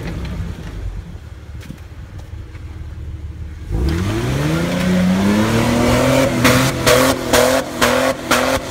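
Jeep Wrangler engine revving hard as it ploughs through deep snow: about four seconds in the engine climbs steeply in pitch and is held at high revs, with a loud rushing that pulses about two or three times a second as the tyres spin and throw snow.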